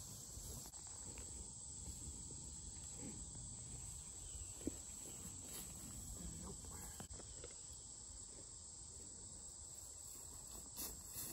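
Steady high-pitched chirring of crickets in the background over a low rumble, with one short click about four and a half seconds in.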